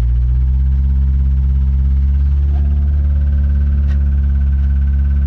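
Ford Ranger pickup's engine running steadily with a low drone, its pitch stepping up slightly just after the start. The engine has a rod knock.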